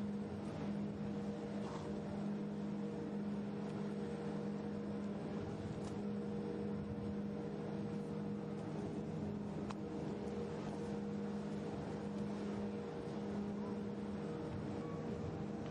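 Cargo ship's engines running, a steady low drone that holds one pitch.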